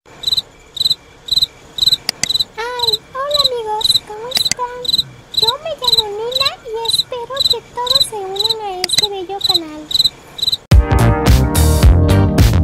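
Cricket chirping at about two chirps a second, with a wavering, sliding tone over the middle stretch. Loud music with a beat cuts in suddenly near the end.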